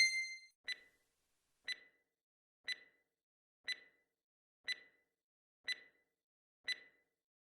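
Clock-tick sound effect of a countdown timer, faint and even, seven ticks once a second, timing the answer pause of a quiz.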